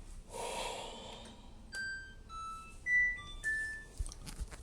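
Haier washing machine's electronic start-up tune: a short melody of about six beeps at different pitches, played as the machine is switched on. Before it comes a breathy rustle, and a few soft clicks follow near the end.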